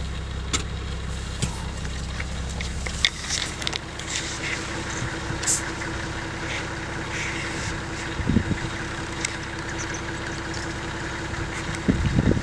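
A vehicle engine idling with a steady hum whose pitch changes about three seconds in. Scattered light clicks and two low thumps come through over it.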